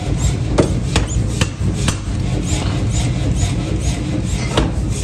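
Forging machinery running with a steady low drone, over which come sharp metallic clicks about twice a second, pausing in the middle, and short high chirps.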